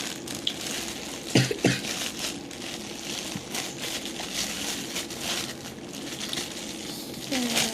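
Homemade fluffy slime being squished and pulled by hand, a wet, crackly squishing, with two sharp clicks close together about a second and a half in.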